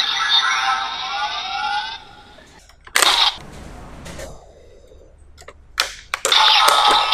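Electronic sound effects from a Kamen Rider toy gun. A sweeping synthesized effect fades out about two seconds in, a sharp gunshot-like blast comes about three seconds in, and more short blasts follow near the end.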